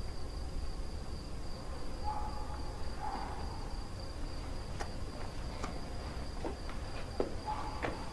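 Quiet background with a steady high-pitched whine over a low rumble, broken by a few faint clicks and brief faint tones.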